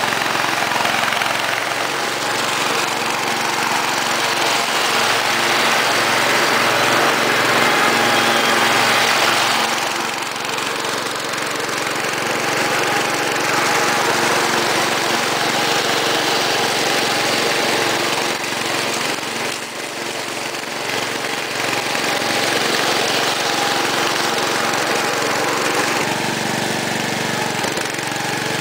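Cub Cadet 127 garden tractor's single-cylinder Kohler engine running steadily while it drives a 48-inch mower deck through grass. The sound eases off and comes back a couple of times as the tractor moves about.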